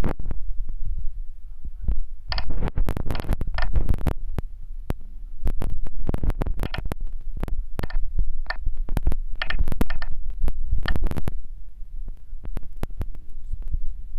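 Fingertip taps on a phone's touchscreen keypad, irregular thumps and clicks at a few a second, picked up close by the phone's own microphone over a steady low hum.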